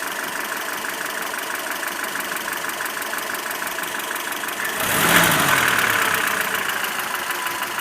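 Warm ZMZ-402 four-cylinder petrol engine idling with an evenly pulsing knock, then about five seconds in a quick throttle blip: the revs jump and fall back toward idle. The knock was traced to play between the piston pins and connecting rods in all four cylinders.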